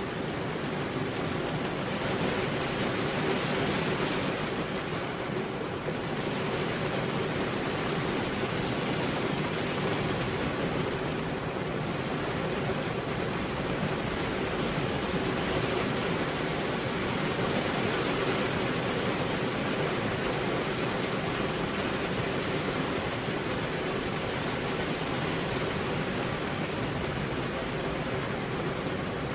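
Heavy rain falling steadily on a road surface, an even hiss of water with no thunder.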